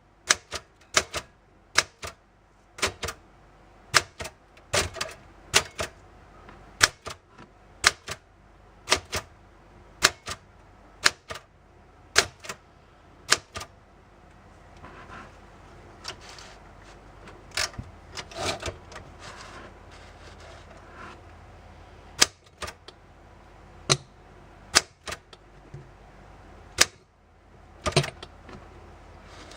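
Typewriter prop's keys being struck one at a time, giving sharp clacks about once or twice a second, thinning out in the second half. Softer, duller noises come between the strikes in the middle stretch.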